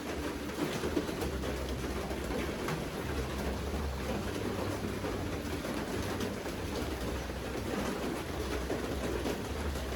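Steady rain falling, with scattered drop ticks over a continuous low rumble.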